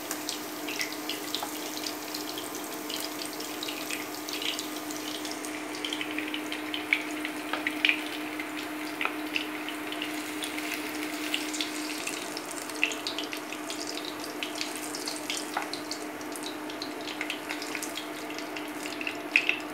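Marinated paneer cubes shallow-frying in hot oil, with a steady crackling sizzle, while a flat spatula now and then clicks and scrapes against the non-stick pan as the pieces are lifted out. A steady low hum runs underneath.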